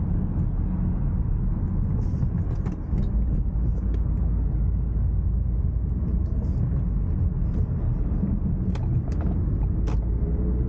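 Steady low rumble of a Ford Focus driving on a wet road, heard from inside the cabin: engine and tyre noise, with a few faint clicks.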